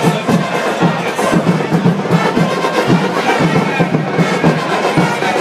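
Stadium supporters' band playing: drums beating at a steady quick pace with brass over them, and crowd voices mixed in.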